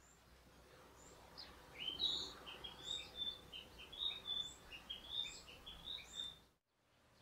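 Bird song: a quick run of short chirping notes over a faint background hiss, cutting off suddenly about six and a half seconds in.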